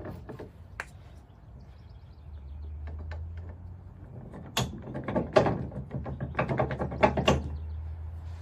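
Metal knocks, clicks and scrapes from a steel Weigh Safe drop hitch as its ball mount is slid back up inside the shank and handled into position. The clicks come in a cluster from about halfway through, over a steady low hum.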